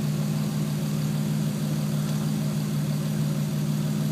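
Toyota Supra twin-turbo straight-six idling steadily with an even hum, its ECU receiving ignition-feedback (IGF) signals from a home-made circuit instead of the factory igniter.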